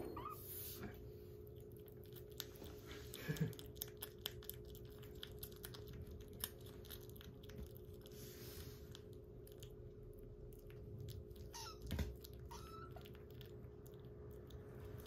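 Kitten eating soft wet weaning food from a ceramic bowl: faint, quick, wet chewing clicks, with a couple of louder knocks.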